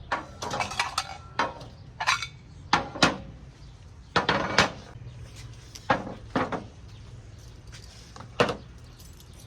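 Hard objects clinking and clattering against each other: about ten separate, irregular knocks and clinks with a short ring after each.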